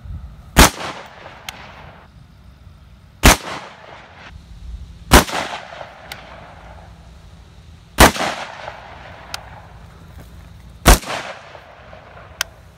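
Five single rifle shots from an AR-15-style rifle, fired slowly and unevenly about two to three seconds apart. Each crack fades over about a second, and a few faint ticks fall between shots.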